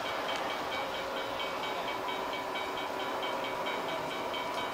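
Model freight train running steadily along its track, wheels rumbling, while a model grade-crossing bell rings over it in a quick, even repeat of about five strikes a second.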